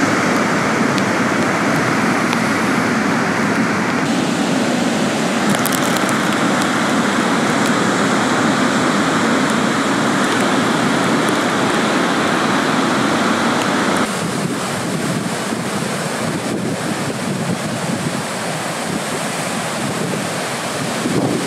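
Surf breaking and washing in, with wind rumbling on the microphone. The noise changes abruptly a few times, dropping a little about two-thirds of the way through.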